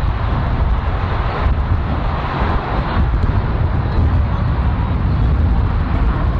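Steady rumble of traffic on a multi-lane highway, with wind buffeting the microphone.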